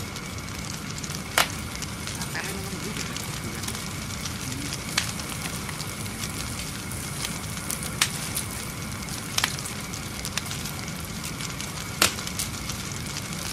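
Wood campfire crackling steadily, with about five sharp pops a few seconds apart, as junglefowl roast over it on bamboo skewers.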